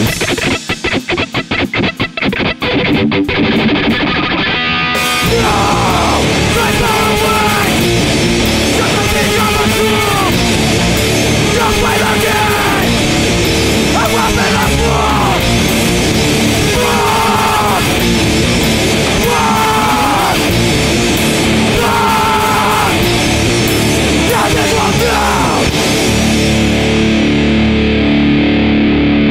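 Loud rock song with guitar and sung vocals. It opens with stop-start hits in short gaps for a few seconds, then a sung phrase repeats about every two seconds, and near the end the band settles on a held chord.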